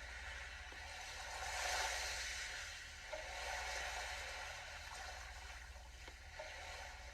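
Heartbeat-driven music from a Sound of Soul biofeedback device: a soft, rushing wash of sound that swells and fades twice, with a faint held note, over a low steady hum.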